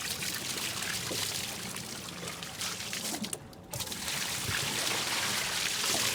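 Water pouring and splashing steadily, broken off briefly about three and a half seconds in.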